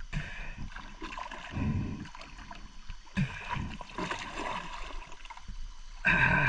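Water sloshing and splashing as a large zúngaro catfish is hauled up out of the river against the side of a wooden boat, with scattered low knocks and a brief louder sound near the end.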